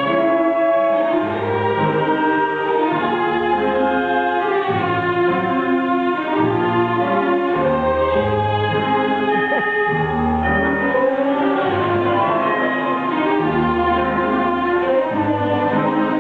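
Instrumental orchestral music led by strings, over low bass notes that change about once a second.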